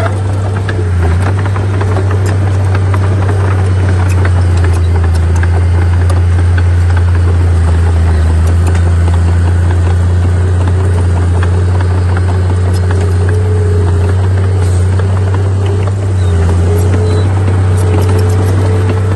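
Heavy earthmoving machinery's diesel engine running steadily with a deep low hum, with scattered clanks and rattles of metal and material throughout.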